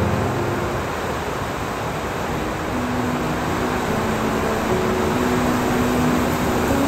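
Steady rain noise, with a few soft held low music notes coming in about halfway through.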